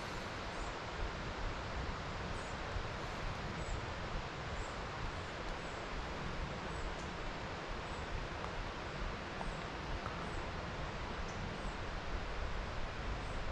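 Shallow trout stream running over a riffle: a steady rushing wash of water. Faint, short, high chirps repeat about once a second above it.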